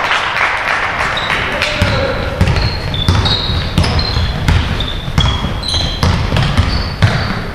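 Basketball being dribbled on a sports-hall floor, a run of thuds about every half second to second, with sneakers squeaking sharply on the court and voices carrying in the hall.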